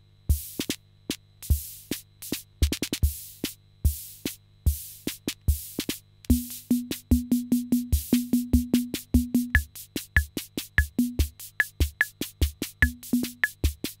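Elgam Carousel's built-in rhythm unit playing a preset drum-machine pattern of kick drum and hiss-like hi-hat or cymbal hits. About six seconds in it changes to a faster, busier rhythm with a pitched drum and a high clicking percussion voice. A low hum sits underneath.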